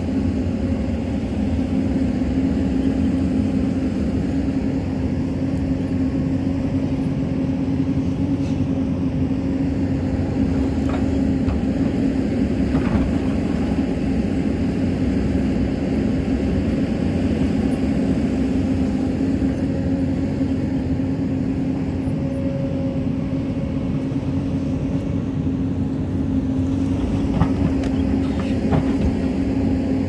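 Hyundai excavator's diesel engine running at a steady working pitch as the bucket digs into soil, with a few faint knocks.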